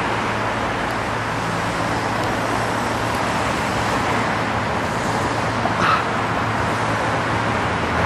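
Steady road-traffic noise with a low, even hum underneath.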